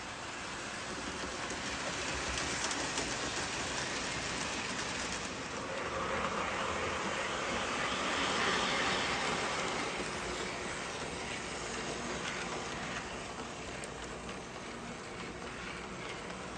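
Postwar Lionel O-gauge freight train running on its track: the Erie Alco diesel's electric motor whirring and the wheels rolling over the rails. It swells to its loudest about halfway through, then eases off.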